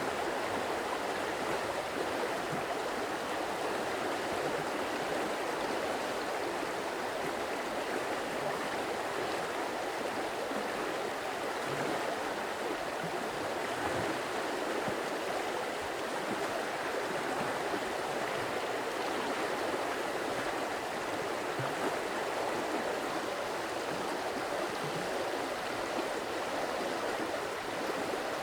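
Stream running steadily: an even rush of flowing water with occasional faint low gurgles.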